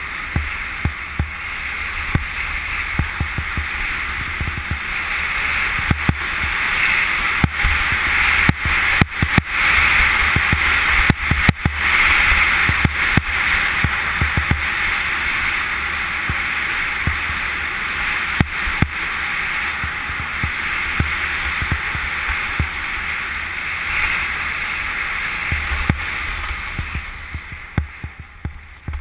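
Skiing downhill with an action camera: a steady rushing hiss of wind and skis running over packed snow, with scattered sharp knocks from bumps. It fades near the end as the skier slows.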